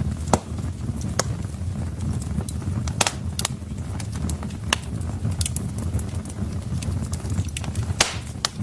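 Wood fire crackling in a fireplace: sharp, irregular pops and snaps from the burning logs over a steady low rumble of the flames.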